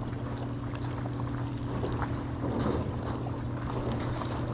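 Boat motor running steadily at low revs, a constant low hum.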